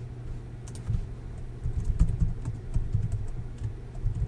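Typing on a computer keyboard: irregular key presses and clicks with a few duller knocks, over a steady low electrical hum.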